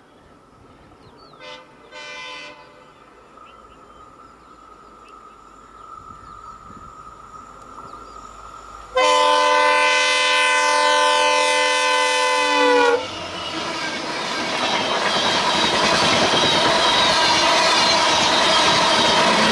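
Diesel locomotive air horn: two short toots about two seconds in, then one long loud blast from about nine to thirteen seconds. As the horn stops, the noise of the passing train's engine and wheels on the rails builds and stays loud.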